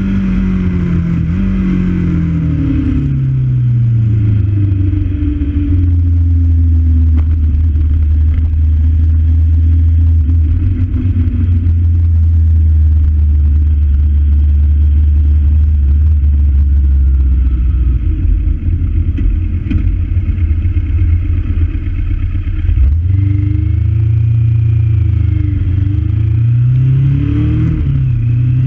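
Vehicle engine running, heard from onboard while driving. Its pitch falls over the first few seconds, holds steady for a long stretch, then rises and falls several times near the end as the speed changes.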